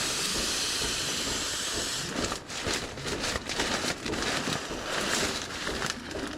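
Air rushing into an inflatable camping sleeping mat as it is blown up, the inflation so breath-heavy that it leaves him dizzy: a steady hiss for about two seconds, then broken, irregular puffs and rustling.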